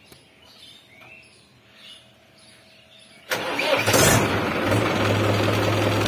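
Mahindra tractor's diesel engine started on the key, catching suddenly about three seconds in and settling into a steady idle. Faint bird chirps before it starts.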